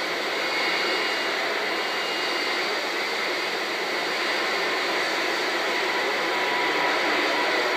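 Steady static hiss with no voice on it, thin and narrow like an open radio channel between transmissions.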